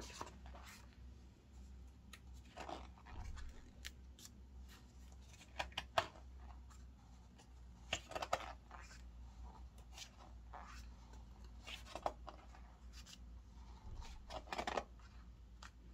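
Pages of a large glossy photobook being turned one after another, giving short papery swishes and light taps at irregular intervals of about a second or two.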